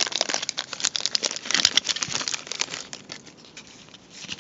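Packaging being handled: dense crinkling and crackling of paper and plastic for about three seconds, then a few quieter rustles.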